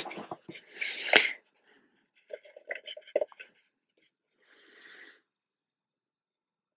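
Hands rubbing and pressing glued fabric down onto a painted box: soft scratchy rustles and a few light clicks in three short spells, the last about two thirds of the way in.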